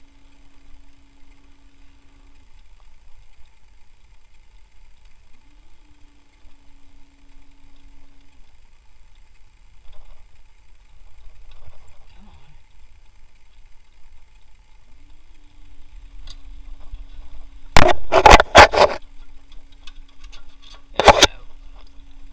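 A power tool run in two short bursts near the end, a one-second burst and then a brief one, loosening the 14 mm bolt under the alternator. Before that only faint low shop noise with a low steady hum that comes and goes.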